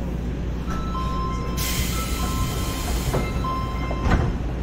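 Subway train standing at a station platform, its equipment humming steadily, while a chime of two alternating high notes sounds for about three seconds. A burst of air hiss comes midway, and a sharp thump near the end.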